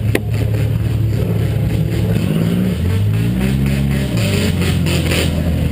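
Small demolition-derby car's engine running, revving up about two and a half seconds in and dropping back a second and a half later. A sharp click comes just after the start.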